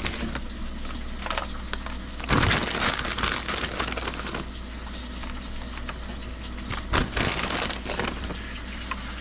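Grated tasty cheese being sprinkled and spread by hand over a schnitzel: irregular rustling and crinkling with scattered light crackles, loudest a couple of seconds in, over a low steady hum.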